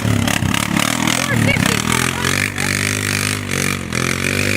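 An engine running: uneven and choppy for about the first two seconds, then settling into a steady idle.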